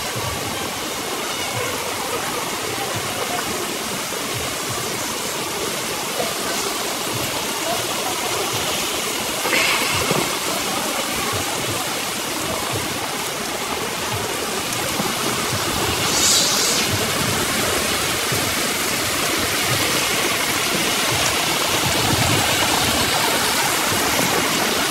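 Steady rushing of water, growing a little louder toward the end.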